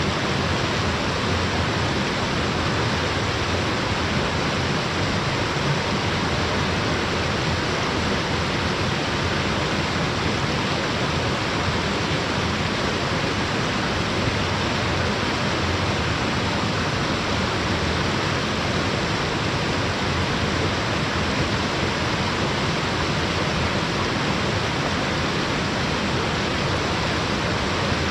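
Waterfall: falling water rushing in an even, unbroken hiss that holds steady throughout.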